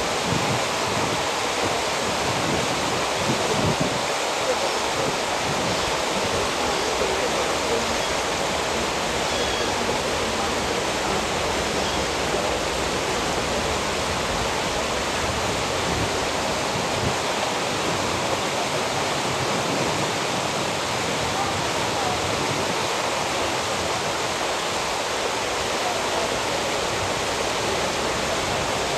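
Steady rush of churning water carrying a mass of floating plastic bottles and balls, an even noise with no distinct knocks or breaks.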